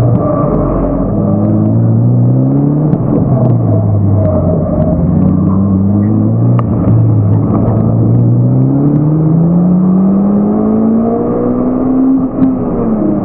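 Mitsubishi Lancer Evolution's turbocharged four-cylinder engine, heard from inside the cabin, held in second gear through a gymkhana run. Its revs rise and fall over and over as the throttle is applied and lifted. A long climb in pitch ends in a sharp drop about twelve seconds in.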